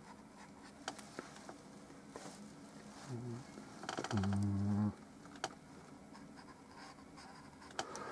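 Paintbrush dabbing and scratching faintly on canvas, with a few light clicks. A low buzzing tone sounds briefly about three seconds in, then again, louder, for most of a second just after four seconds.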